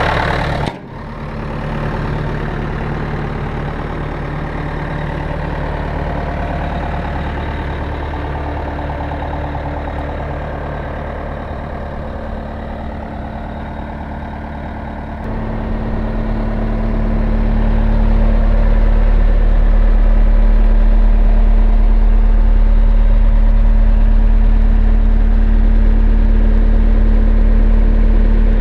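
Cat 236B3 skid steer's diesel engine running steadily, with a brief dip about a second in. About halfway through it gets louder and deeper, then holds steady at that higher level.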